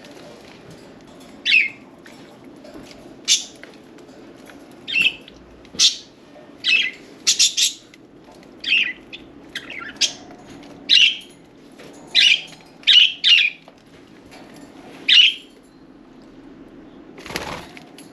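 Budgerigars giving short, loud, harsh calls, about fifteen spaced through the first fifteen seconds, some in quick pairs, over a low steady hum. A brief rustle comes near the end.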